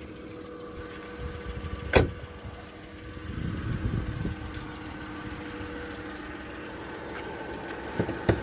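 The driver's door of a 2008 Lincoln MKZ is shut with one sharp slam about two seconds in, over a steady low hum. Two lighter clicks follow near the end.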